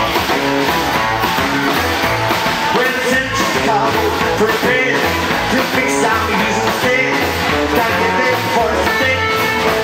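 A rock-and-roll band playing live: red semi-hollow electric guitar, upright double bass and acoustic guitar over a steady rhythm, with a man singing into the microphone.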